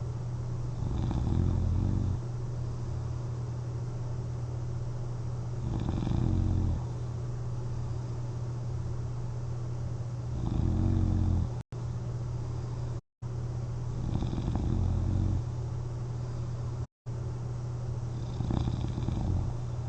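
A person sleeping on their back snoring: five slow, even snores about four seconds apart over a steady low hum. The sound drops out briefly three times in the second half.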